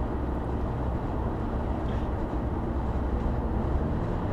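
Steady engine and tyre noise of a car driving at highway speed, heard from inside the cabin as an even low rumble.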